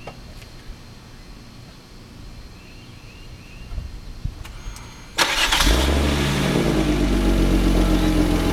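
Infiniti i30's 3.0 L V6 starting about five seconds in and settling into a steady idle. The owner says the welded muffler in its exhaust still leaks.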